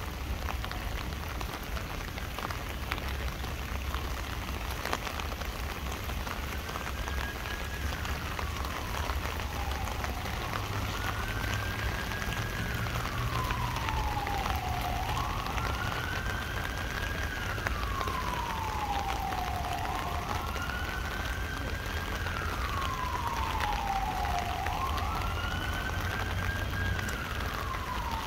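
Rain pattering steadily on an umbrella. From about seven seconds in, an emergency vehicle's siren wails over it, slowly rising and falling about every four seconds.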